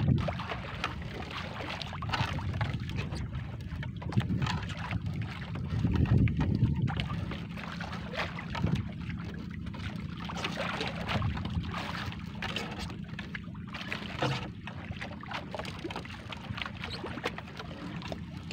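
Wind and water around a small outrigger boat, with the rustle, scrape and splash of a fishing net being hauled aboard by hand.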